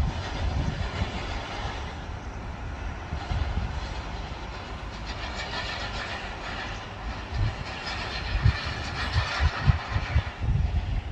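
Jet noise from the Learjet 60XR's twin Pratt & Whitney PW305A turbofans: a steady hiss that swells about halfway through and fades near the end, over uneven low rumbling.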